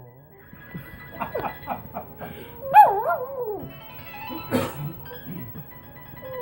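A dog whining and howling along to a phone ringtone melody: a run of short whines about a second in, then a loud wavering howl about three seconds in.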